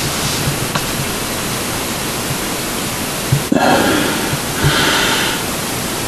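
Steady, loud rushing hiss with no clear pitch or rhythm.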